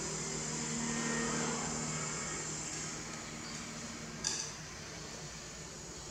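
A plate clinks once against the tiled floor about four seconds in while a monkey eats rice from it, over a steady high chirring of insects and a low hum.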